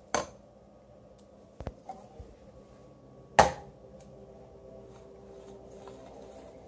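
Metal food cans set down and stacked, knocking on one another and on the countertop: two sharp clacks about three seconds apart, the second the loudest, with a few lighter taps between them.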